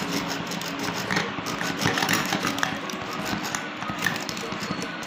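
Metal wire whisk beating ghee and powdered sugar in a glass bowl: a rapid, continuous scraping and clicking of the wires against the glass.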